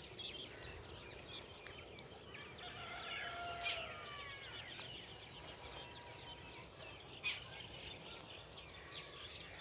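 Faint chorus of small birds chirping and calling in open farmland, with two soft knocks partway through.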